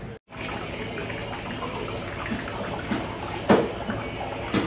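Water bubbling and churning in an aerated live-fish tank, a steady rushing noise, with two sharp knocks in the second half.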